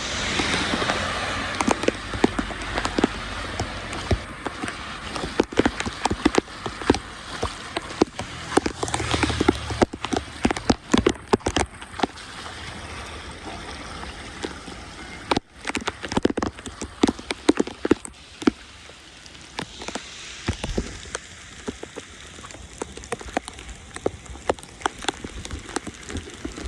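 Rain falling on water and pavement, with many irregular splashes and taps. It is louder for the first ten seconds or so, and cuts out for a moment about halfway through.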